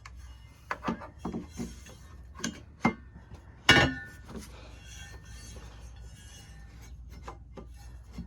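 Knocks and clinks of hard plastic and metal parts as the Starlink dish's mast is handled and fitted into its base: a quick run of taps in the first few seconds, the loudest a clunk with a brief ring about three and a half seconds in, then a few fainter taps.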